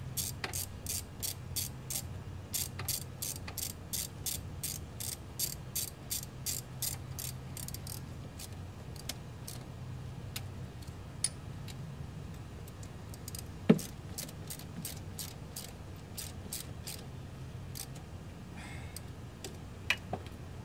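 Hand socket ratchet clicking steadily, about three clicks a second, as the throttle body bolts are tightened; after about eight seconds the clicks turn fainter and sparser. One sharp, loud knock stands out about two-thirds of the way through.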